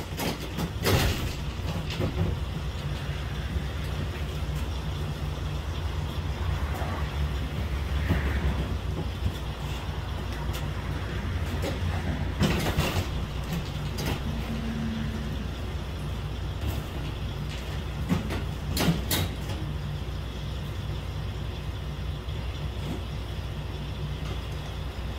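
Semi truck's diesel engine idling with a steady low hum. Several sharp knocks cut through it: about a second in, around halfway, and again about three-quarters of the way through.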